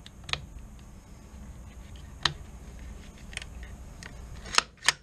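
Several sharp clicks from a Ruger 10/22's crossbolt safety being pushed back and forth through its detent, two louder ones close together near the end.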